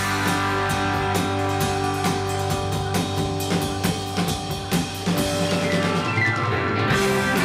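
A rock band playing live, with the drum kit hit hard and busily, cymbals crashing, over held electric guitar and bass. The drum hits thin out in the last couple of seconds.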